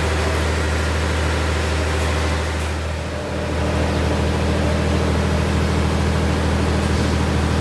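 A heavy engine idling steadily, a deep even drone; the level dips briefly about three seconds in.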